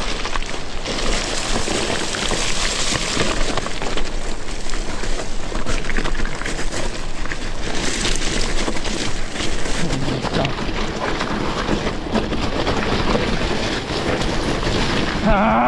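Mountain bike rolling over loose rock and gravel: continuous crunching and clattering of the tyres and rattling of the bike, with wind rushing over the microphone. A voice starts right at the end.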